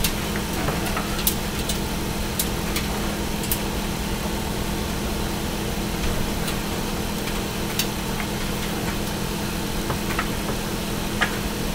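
A steady machine hum with a few sharp, light clicks scattered through it.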